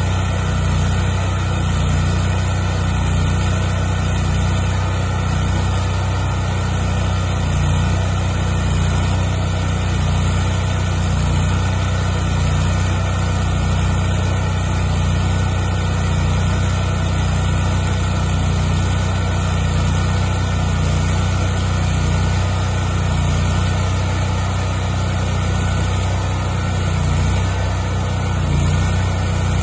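Lincoln engine-driven welder running steadily with a deep, even hum, under load from arc welding hinges onto steel.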